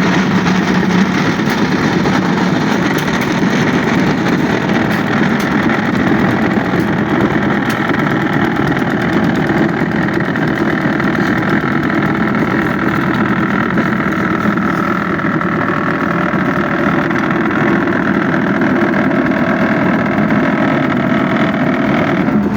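A machine's engine running steadily at an even pitch, with no change in speed.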